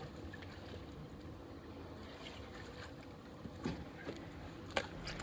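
Steady low wind and water noise around a fishing boat, with a few short knocks and splashes near the end as a fish is handled in the landing net.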